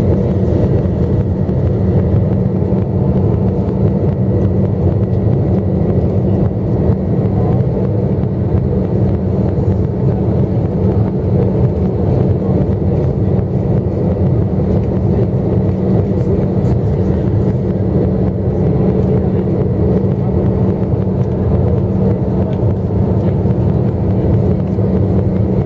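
Steady cabin noise inside an Airbus A321 on approach to landing, heard over the wing: engine drone with rushing airflow and a steady low hum.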